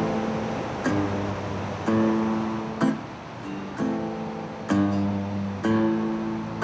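Resonator guitar playing a slow picked part: a chord struck about once a second and left to ring.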